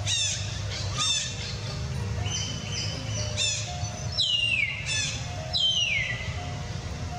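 Repeated high-pitched animal calls: short chirps about once a second, then two longer calls that slide down in pitch, over faint steady background music.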